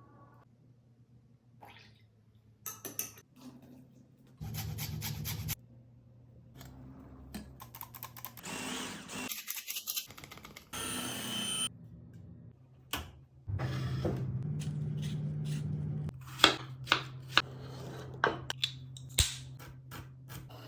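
Baking preparation in a kitchen: a small appliance hums steadily twice, the second time from a little past halfway on, and a utensil clinks sharply against a bowl or dish several times near the end.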